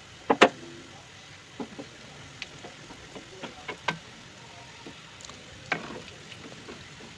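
Samosas deep-frying in oil in a metal kadai on a low flame: a steady, quiet sizzle. A wooden spatula knocks against the pan now and then as it turns them, loudest twice about half a second in.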